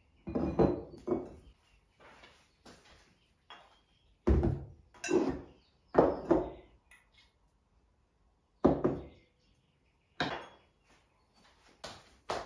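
Stoneware bowls and a glass jar being set down one after another on a kitchen counter and wooden board: about seven separate clunks and knocks with short quiet gaps between them.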